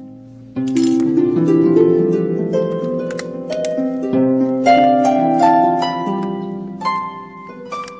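Background music of plucked notes, several sounding together, that comes back in strongly about half a second in.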